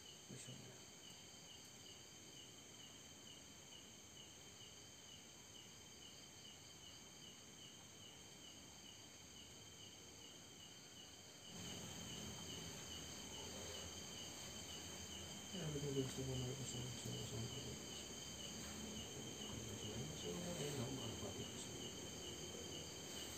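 Night insects, crickets among them, chirping in a steady, evenly pulsing high trill.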